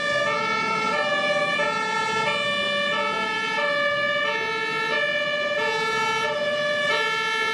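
A tune of steady electronic tones stepping between several pitches in short notes, with one higher tone held underneath throughout; siren-like.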